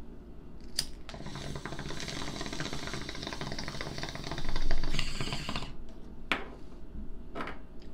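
A water bong being hit: a click about a second in, then several seconds of steady bubbling through the water, loudest just before it stops.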